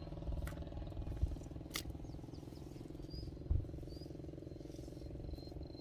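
A steady low mechanical hum, with a few light clicks and three or four faint, short, high chirps in the second half.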